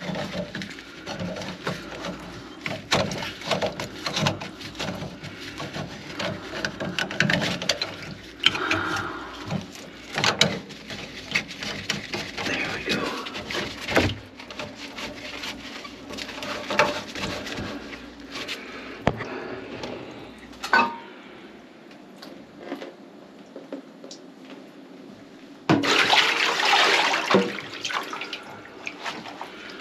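Water running and gurgling in a kitchen sink drain that is being cleared of a grease clog, with many sharp knocks and clatters from the plumbing work. A louder rush of water comes near the end.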